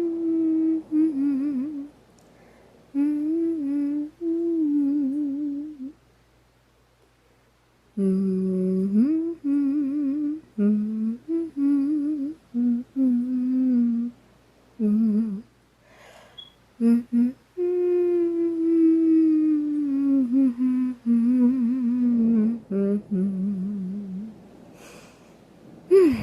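A woman humming a slow old tune, the kind she used to hum to her children when they were scared. It comes in phrases with a slight waver in the pitch, broken by pauses, the longest about six seconds in.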